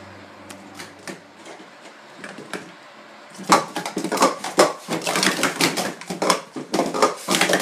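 Plastic sport-stacking cups being stacked and unstacked at speed on a mat: a fast, dense clatter of plastic clicks that starts about three and a half seconds in, after a few faint taps.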